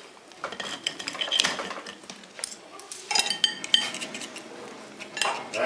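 Knife and fork clinking and scraping against ceramic plates as cooked meat is cut off the bone, in irregular short clicks that grow busier in the second half.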